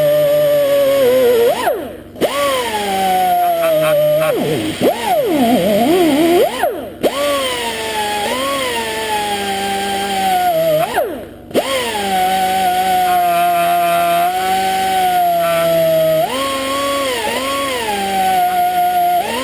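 Air tool spinning a steel wire brush against a carbon-fouled engine valve, cleaning it. The whine sags and recovers in pitch as the brush bites into the deposits and eases off, and it cuts out briefly three times.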